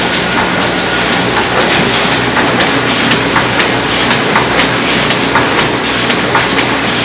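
Oliver 66 semi-automatic offset printing press running: a steady mechanical clatter with rapid, repeated clicks from its moving parts.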